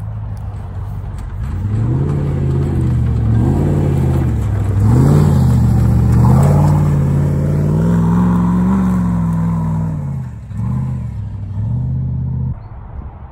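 Comp safari off-road racing car's engine revving hard as it climbs a steep bank, the pitch rising and falling several times with the throttle and loudest midway. It drops away sharply near the end.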